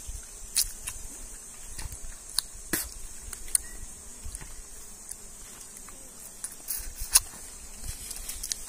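Steady high-pitched insect chorus, with a few short sharp clicks and smacks scattered through it from the honeycomb being bitten and handled.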